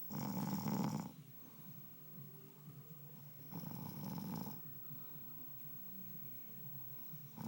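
A sleeping man snoring: two snores of about a second each, some three and a half seconds apart, the first louder.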